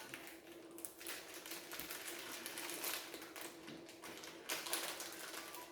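Crinkling and crackling of a plastic candy wrapper being handled and torn open, in a dense rapid patter of small crackles over about four seconds, with a faint steady hum underneath.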